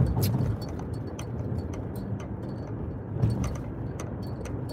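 Car cabin noise while driving: a steady low road and engine rumble with faint irregular light clicks, and brief louder low swells at the start and about three seconds in.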